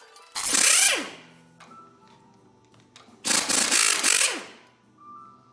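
Pneumatic impact wrench run in two bursts of about a second each, spinning 9/16-inch nuts off the rear axle end of a 1972 Chevy C20; its whine drops in pitch as each burst ends.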